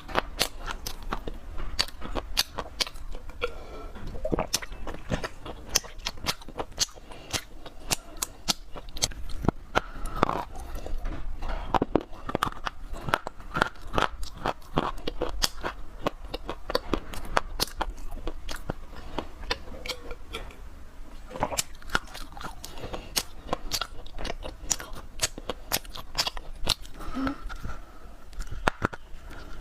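Dry clay crunching and crumbling: a dense, irregular stream of sharp crackles and snaps.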